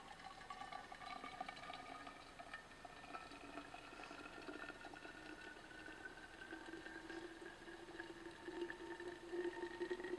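Water pouring in a thin stream from a camping kettle's spout into a thermos, the note of the filling flask rising slowly and steadily as it fills up.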